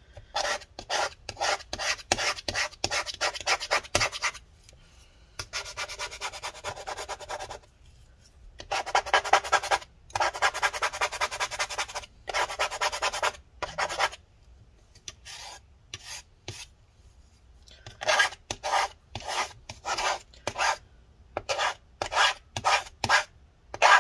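A thin flat spatula scraping rubbing-alcohol-softened battery adhesive residue out of a MacBook Pro's case. It comes in runs of quick, repeated scraping strokes separated by short pauses, with a fainter, sparser patch of strokes about two thirds of the way through.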